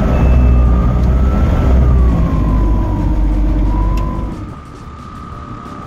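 Pipistrel Alpha Electro's electric motor and propeller running just after start-up, heard inside the cockpit: a high electric whine that wavers in pitch over a heavy low rumble. About four seconds in the rumble drops away, leaving a steadier whine.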